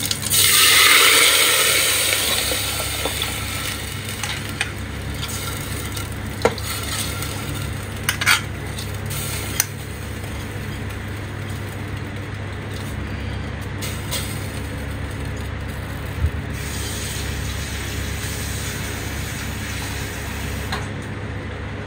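Washed moong dal and rice, still wet, tipped into hot ghee and cumin in an aluminium pressure cooker: a loud sizzle at the start that fades over a couple of seconds into a steady sizzle. A steel ladle stirs the mix, with a few sharp clinks against the cooker's rim.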